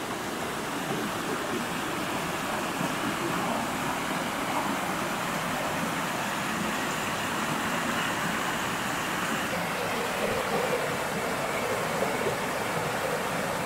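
Shallow, fast mountain creek rushing over rocks and small rapids: a steady rush of running water.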